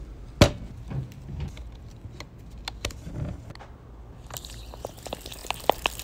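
Hands handling a plastic drink bottle: one sharp click about half a second in, then scattered clicks and crinkles, with a quicker run of short clicks from about four seconds on, over a low steady rumble.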